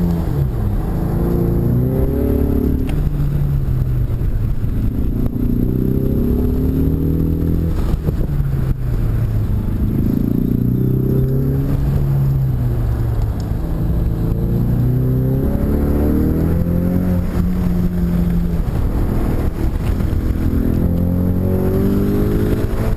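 Ford Mustang EcoBoost's turbocharged 2.3-litre four-cylinder engine, heard from inside the cabin, driven hard on an autocross run: its pitch climbs and drops again and again as the driver accelerates, lifts and shifts between sections.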